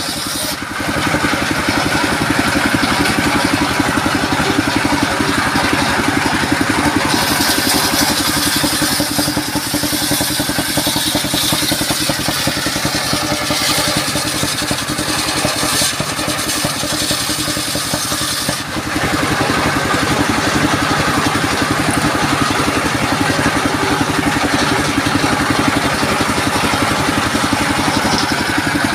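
Diesel engine running steadily, driving a large circular saw blade that rips lengthwise through a waru log. A harsher, hissing cutting noise rises and falls over the engine drone as the log is fed, with a short lull about two-thirds of the way through.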